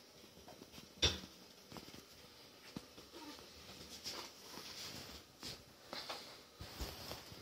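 Young Shih Poo puppies shuffling and crawling on a blanket, with faint squeaks. There is one sharp knock about a second in.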